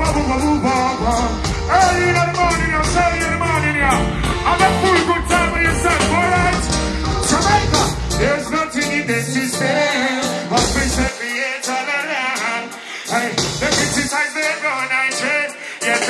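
Live reggae band with a singer: wavering sung lines over a heavy bass and drum beat. About eleven seconds in, the bass and drums mostly drop out, coming back briefly once, leaving the voice over lighter instruments.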